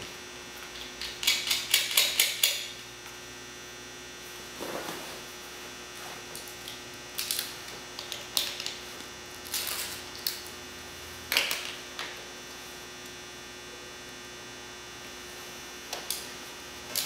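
A hand wrench clicking and clinking on car battery terminal bolts as the series cable's connections are tightened. A quick run of metallic clicks comes a second or two in, then single clinks spread out, over a steady electrical hum.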